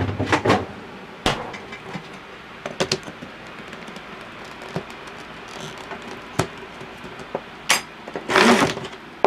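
Sharp plastic clicks and knocks as a countertop blender's jar is handled and its lid pressed down, then a half-second burst of the blender motor near the end.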